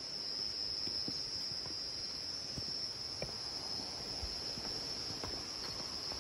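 Steady high-pitched chorus of insects, unbroken throughout, with a few faint footsteps on a rocky path.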